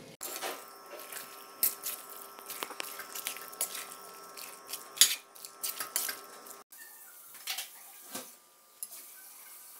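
A metal spoon stirring and scraping a thick mix of tapioca and beef in a pan: irregular clicks and scrapes over a steady hum, cutting to a quieter stretch with a few clicks about seven seconds in.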